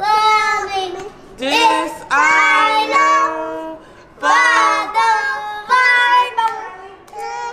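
Children singing a song in high voices: several drawn-out phrases with long held notes and short breaks between them.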